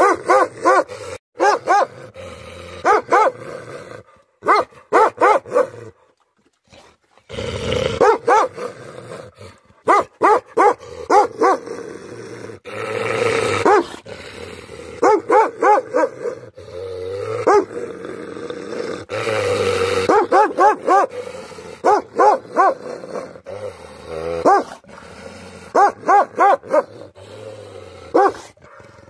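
Tibetan Mastiff barking aggressively in rapid volleys of three to five deep barks, with longer snarling growls in between. This is a guard dog's threat display at a fence.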